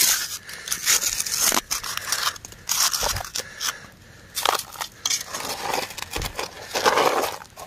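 Small metal hand scoop digging into snow-dusted gravelly clay, scraping and crunching in irregular strokes, with the dirt and pebbles tipped into a plastic gold pan with a couple of dull thuds.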